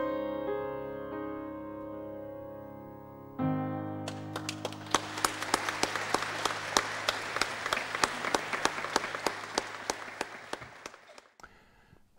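Grand piano holding the closing chords of a song, with a final low chord struck about three seconds in. A congregation then claps, fading away near the end.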